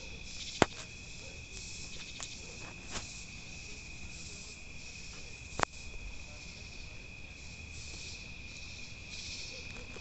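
Crickets chirping in a steady high-pitched chorus, with two sharp clicks, one about half a second in and one a little past halfway.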